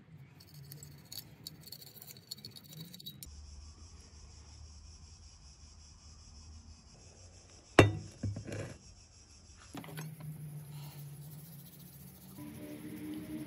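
Toothbrush scrubbing the polished metal fuel tank of a PT-1 kerosene stove over soapy water. A single sharp clink a little past the middle, with a few lighter clicks after it, as the metal tank knocks against something.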